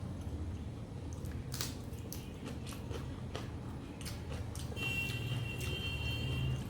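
Close-up chewing and wet mouth clicks from a big mouthful of rice and mutton curry. A steady high-pitched tone comes in about five seconds in.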